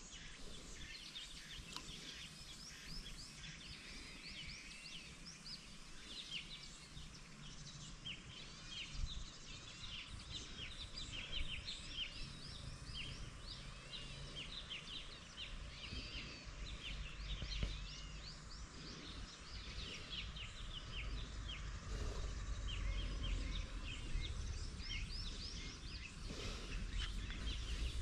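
Many birds chirping at once, a dense chorus of short calls, with a low rumble of wind or microphone handling that grows louder in the last few seconds.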